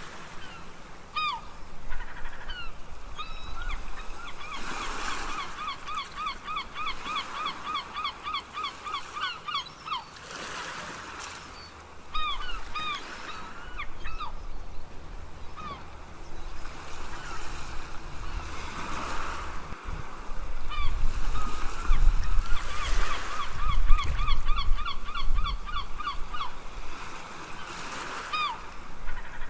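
Seagulls calling in quick runs of short, repeated notes, several a second, over ocean waves that swell and break every few seconds.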